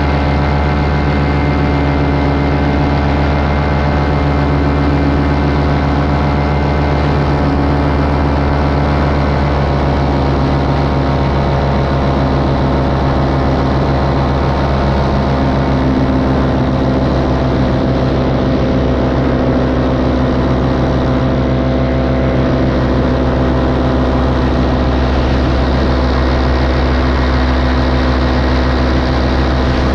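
Engine and propeller of a light aircraft running steadily at cruise power, heard close up from the pilot's helmet camera, with only a slight shift in pitch around the middle.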